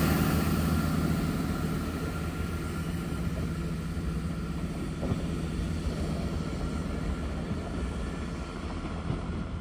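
Class 165 diesel multiple unit's engines running as the train moves off, a steady low engine hum that fades gradually as it draws away.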